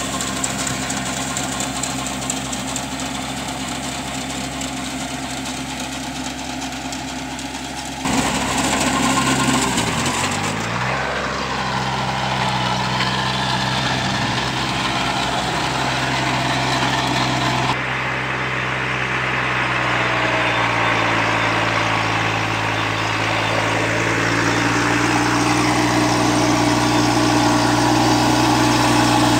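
Kubota NeoStar 21 hp compact tractor's diesel engine running steadily under load as it works an implement through the soil between sugarcane rows, weeding and earthing up. The sound jumps abruptly louder about eight seconds in and shifts again past the middle. The engine pitch dips and comes back up around ten seconds in.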